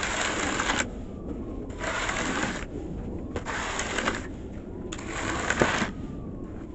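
Snow shovel pushed along a snowy sidewalk, scraping through the snow in four strokes of a little under a second each, about one every second and a half.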